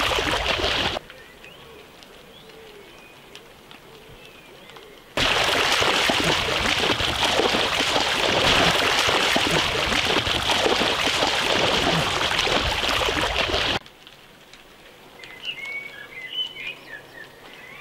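Heavy splashing of people thrashing through shallow sea water. It breaks off suddenly after about a second, comes back about five seconds in, and cuts off again near fourteen seconds. In the quieter gaps, birds chirp faintly.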